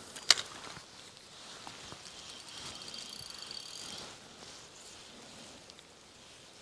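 A sharp click about a third of a second in, then a fishing reel being cranked from about two to four seconds in as a lure is retrieved: a fast, fine, even ticking whir.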